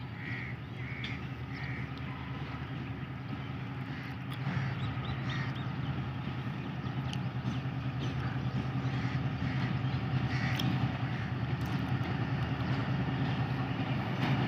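Diesel locomotive engine running as it hauls a departing passenger train toward the listener, growing steadily louder. Crows caw several times in the first two seconds.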